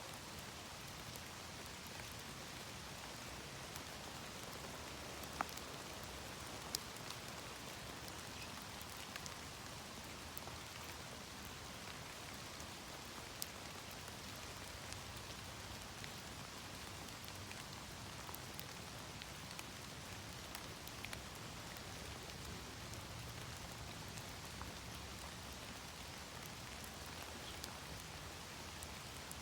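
Steady rain: drops pattering into puddles and falling from the trees, some hitting a parachute canopy, with scattered louder single drips.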